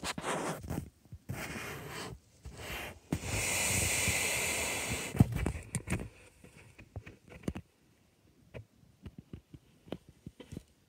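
Rustling and scraping handling noise from a phone being moved about, with a steady hiss for about two seconds in the middle and a sharp knock just after it, then scattered light clicks and taps.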